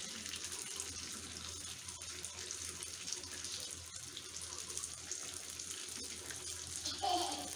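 Rice-flour chicken balls deep-frying in hot oil in a kadai: a steady sizzle with fine crackling.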